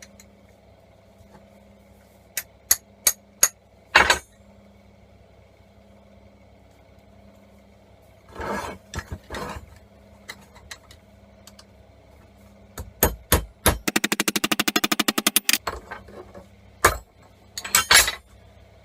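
Hammer blows on a steel rod driving the solid copper core out of a MIG welding torch neck held in a vise: groups of sharp metallic strikes, with a short scrape in the middle and a fast run of rapid rattling taps later on.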